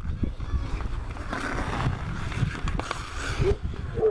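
Ice skate blades scraping on natural pond ice and ice hockey sticks knocking against the ice and puck, over a steady low rumble. A few sharp knocks come near the end.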